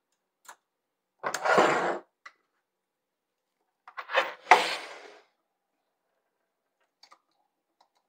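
Tools being handled on a wooden workbench: a cordless drill-driver is set down with a scrape about a second in. Around four to five seconds in, a louder knock and scrape follows as the chainsaw is set on the bench. A few light clicks fall between.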